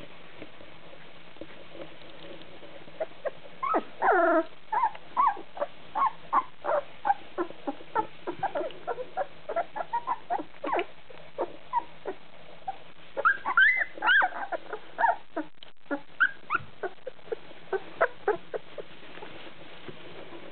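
Very young puppies whimpering and yipping: a rapid string of short, high, squeaky calls, some rising and falling in pitch, starting about three seconds in and dying away near the end.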